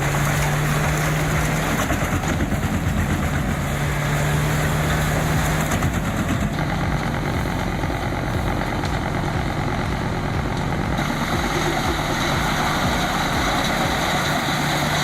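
Large drum wood chipper with a 1,150-horsepower Caterpillar engine running hard while it chips logs: a steady heavy engine drone under dense, continuous noise.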